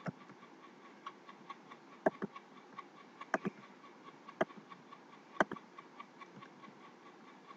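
A few scattered computer mouse clicks, including a quick double click about three and a half seconds in, over faint steady background noise.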